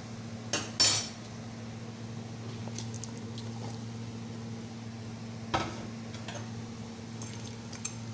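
Kitchenware clatter as chopped chayote is tipped from a bowl into a pan of simmering chicken broth: two sharp clinks about a second in, another knock about two-thirds through and a few faint ticks near the end. A steady low hum runs underneath.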